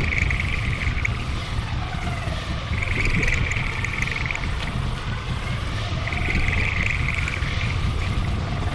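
Experimental noise music: a dense, loud low rumble with a harsher, higher band that swells in and out about every three seconds.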